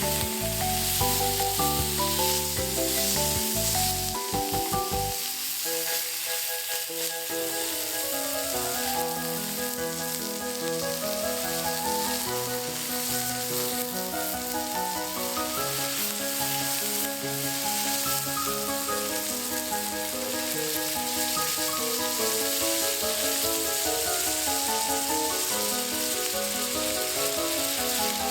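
Steak sizzling in a Muurikka campfire frying pan, a steady hiss of frying, with background music playing over it.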